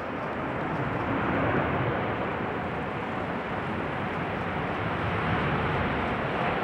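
Jet airliner's engines running as the aircraft passes, a steady rushing noise that swells about a second in and holds.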